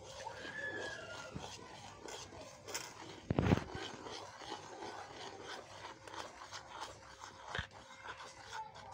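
Metal spoon scraping and stirring a dry, crumbly flour batter in a plastic bowl, in quick irregular strokes: the waffle batter is being mixed by hand without a mixer. A louder knock comes about three and a half seconds in, and a smaller one near the end.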